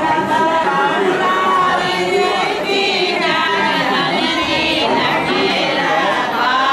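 Several voices singing together in chorus, with some held notes.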